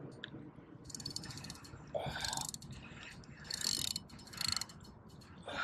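Fishing reel clicking in about four short bursts of rapid ticks while a hooked striped bass is being fought.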